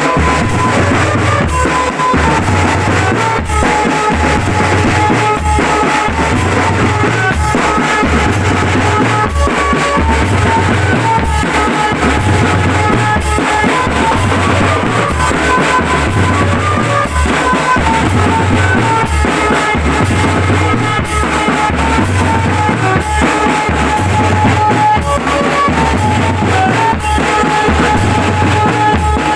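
Drum band music: bass drums and snare drums beat a steady, repeating rhythm under a melody played in held notes.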